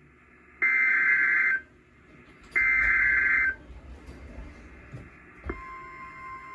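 NOAA Weather Radio SAME/EAS header: buzzy one-second bursts of digital data tones, two of them about a second apart. These are followed, about five and a half seconds in, by a click and the steady 1050 Hz weather radio alert tone, signalling that a new alert message is starting.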